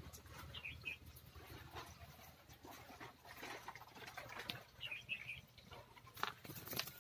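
A small bird chirping briefly, two short clusters of high chirps, over scattered clicks and rustles.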